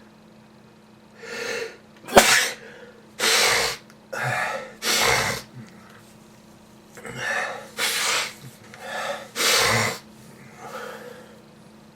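A person sneezing in a fit: two runs of loud sneezes and sharp breaths, the first starting about a second in and the second about seven seconds in, about ten in all. It is part of a long-running sneezing and coughing illness that the person puts down to ordinary flu.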